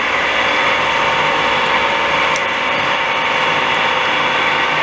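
Metal lathe running steadily with its spindle turning, a constant machine noise with a faint steady hum.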